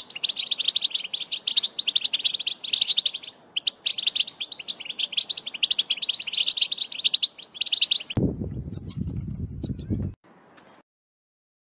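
European goldfinch twittering song: a fast, unbroken run of bright chattering notes, with a short break about three and a half seconds in. About eight seconds in it gives way to a low rumble with a few faint high notes, and the sound cuts off about two seconds later.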